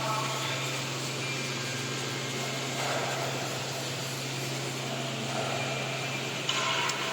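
Steady mechanical hum and whir of workshop machinery, with a short louder rattle near the end.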